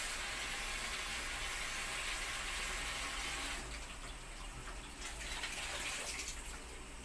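Tap water running steadily into a bowl of sliced mushrooms in a stainless steel sink as they are rinsed; the rush drops about halfway through, then the water splashes out as the bowl is tipped to drain.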